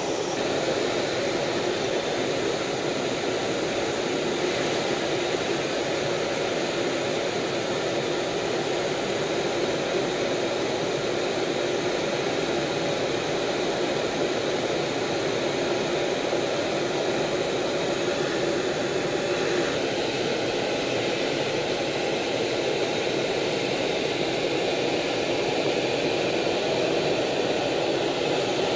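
Steady jet engine and airflow noise heard inside the cockpit of an F/A-18F Super Hornet in flight, a constant rushing hiss with a slight change in tone about twenty seconds in.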